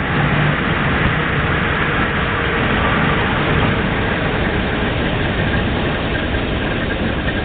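Failing 1250 drilling rig's engine running steadily under a dense mechanical noise.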